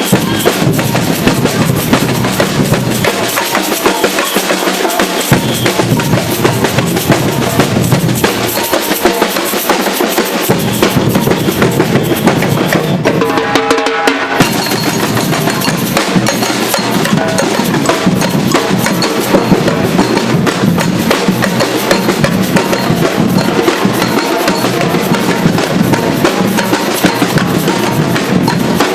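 A batucada percussion group drumming a fast, dense samba rhythm on bass drums and snares. About 13 seconds in the deep drums drop out for a moment in a short break, then the full group comes back in.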